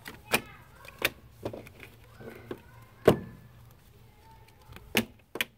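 Sharp taps and knocks from hands and playing cards right at the phone's microphone, about seven in all, the loudest about three seconds in.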